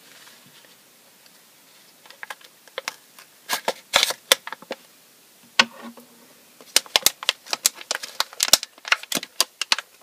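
Foil blind-bag packet crackling and crinkling as it is opened and handled, in an irregular run of sharp snaps that start about two seconds in and come thickest in the second half.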